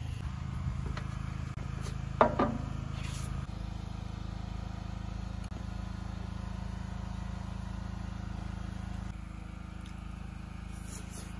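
Steady low hum that shifts slightly twice, with a brief pitched voice sound about two seconds in.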